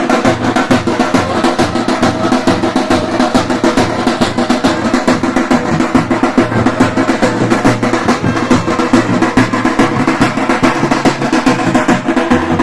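Drums playing a fast, dense, unbroken rhythm of rapid strokes: tiger-dance drumming.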